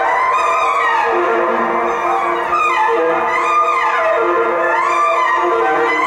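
Contemporary music for alto saxophone and electronics: several held tones layered under gliding sweeps that rise and fall about every two and a half seconds.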